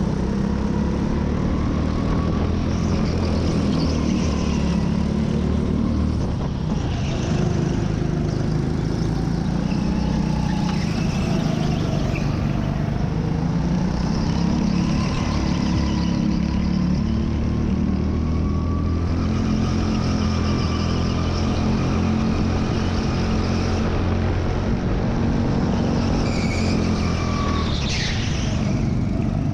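Go-kart running at race pace, recorded onboard, its motor pitch rising and falling as it accelerates out of corners and lifts into them.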